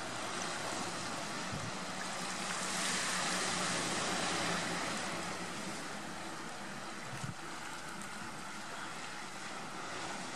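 Sea surf washing over the rocks of the shore, a steady hiss that swells louder for a couple of seconds about three seconds in, with a short low bump about seven seconds in.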